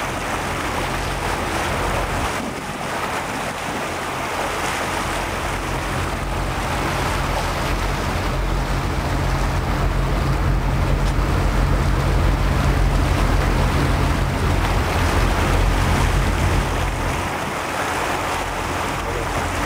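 Wind buffeting the microphone over the wash of open water around a boat, with a steady low hum underneath that fades near the end.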